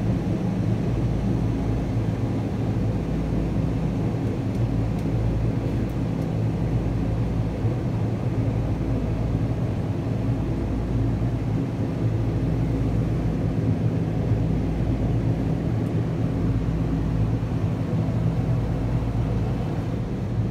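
Steady low drone of running machinery: a constant rumble with a few held low tones, unchanging throughout.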